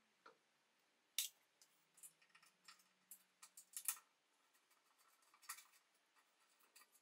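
Scattered small metallic clicks, taps and scrapes as hands work the clips and fixings on the rim of a Tilley runway lamp's metal reflector housing, with sharper clicks about a second in, near four seconds and past five seconds, and a short falling squeak right at the start.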